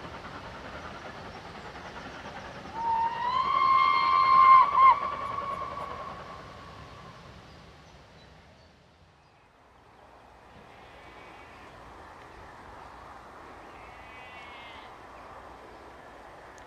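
A steam locomotive's whistle sounds for about two seconds, ending with a short extra toot, over the steady running noise of a train passing at a distance. The train noise then fades away.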